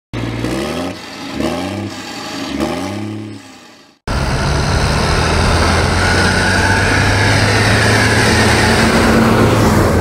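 An engine revving up and down three times and fading away, then a sudden cut to a farm tractor towing a trailer passing close by. Its diesel engine runs steadily, and a whine falls in pitch as the tractor goes past.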